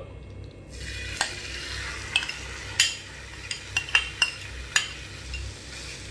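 Marinated chicken pieces sizzling as they go into hot coconut oil in a frying pan. A metal spoon clinks and scrapes against the bowl and pan several times.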